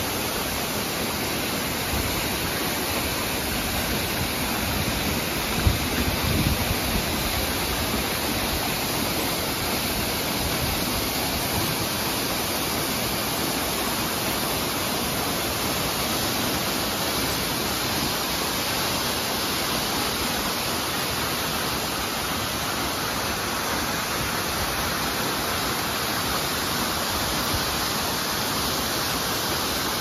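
Steady rushing of a tall waterfall pouring down a rock face onto rocks and into a pool. There is a brief low bump about six seconds in.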